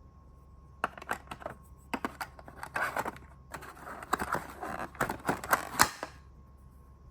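Handling noise from unpacking a grooming kit: a run of sharp plastic clicks and rustling from about a second in until about six seconds, the loudest click near the end.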